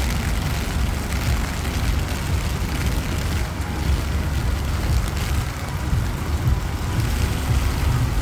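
Rain falling on a wet city street: a steady hiss over a deep, uneven low rumble.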